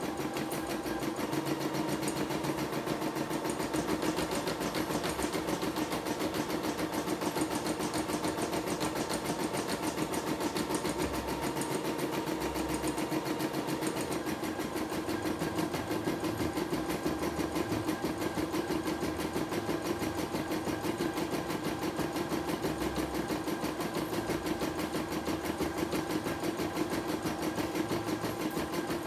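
CNY E960 computerised embroidery machine stitching a design, its needle running in a fast, even rhythm of rapid stitches. The low tone of the machine shifts slightly about halfway through.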